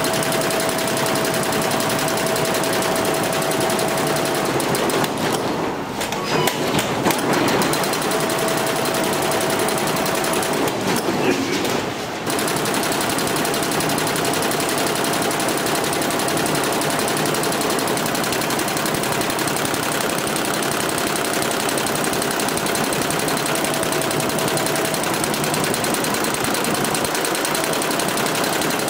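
Jintel multi-head computerized embroidery machine stitching at speed, its needles making a fast, steady rattle. The sound changes briefly twice, around six and eleven seconds in.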